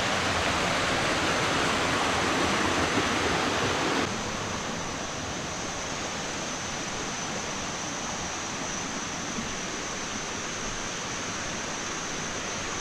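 Water rushing over a waterfall and down a rocky stream, a steady even roar of noise. About four seconds in it suddenly drops to a lower level, after which a thin, steady high tone sits above it.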